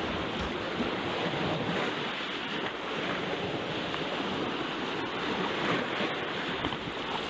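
Sea surf washing over the rocks at the shoreline, with wind buffeting the microphone.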